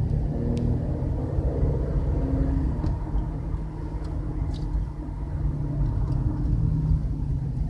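Low road rumble inside a moving 2013 Impala's cabin, with a steady humming drone from the front end that goes with the wheel. The owner takes it for a bad front wheel bearing, most likely on the driver's side.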